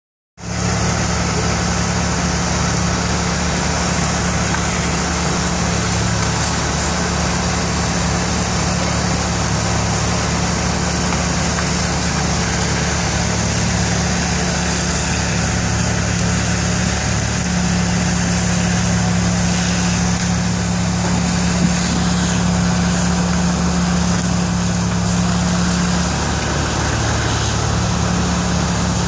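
Fire engines running steadily, a constant engine drone with a low hum, under an even hiss.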